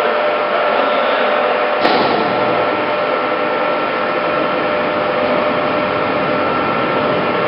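Heavy-duty lathe running steadily with a constant whine over its machine noise, and one sharp knock about two seconds in.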